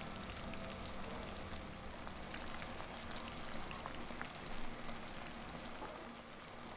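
Food cooking in a pot or pan on the stove: a steady hiss with many small scattered pops and crackles.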